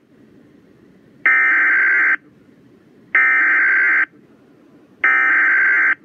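Weather alert radio's speaker sounding three short bursts of warbling digital data tones, each just under a second long and about two seconds apart: the SAME end-of-message code that closes a weather warning broadcast. Faint hiss between the bursts.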